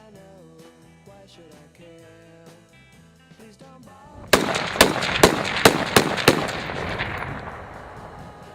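Background music, then about four seconds in a quick string of about six shots from a 5.56 AR-15 pistol with a 7.5-inch barrel. The echo fades out over the following two seconds.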